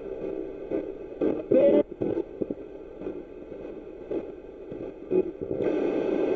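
Spirit box sweeping through radio stations: choppy static cut with brief snatches of broadcast voice and music, each lasting only a fraction of a second. Near the end it settles into a steadier, louder hiss.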